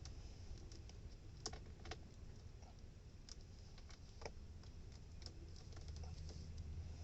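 Faint, irregular light clicks and taps, a few a second at most, over a low steady hum.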